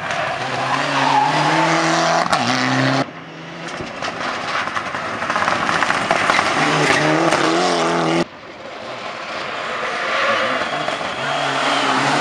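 Rally car engines revving hard through a corner, their pitch climbing and dropping with each gear change, one of them a Mitsubishi Lancer Evolution. The sound breaks off abruptly twice, about three and eight seconds in, as one pass is cut to the next.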